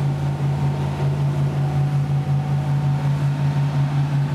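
Fishing boat's engine running steadily under way, a loud low drone with an even pulse several times a second.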